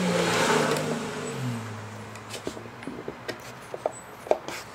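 Router in a router table with a chamfer bit: loud at first, then winding down, its pitch falling steadily over about two seconds. Then a few light knocks and clicks as a redwood slat is handled on the table, the sharpest near the end.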